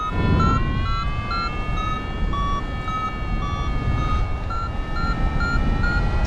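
Paragliding variometer beeping: short beeps that hop up and down in pitch, together with a steady held tone that slowly rises in pitch, over wind rushing on the microphone in flight.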